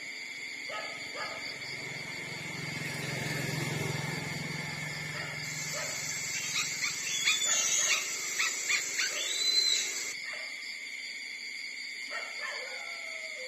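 Newborn puppies squeaking and whimpering as they crowd in to nurse, with short clicky suckling sounds. The squeaks are busiest and loudest between about five and ten seconds in, over a steady high-pitched background hum.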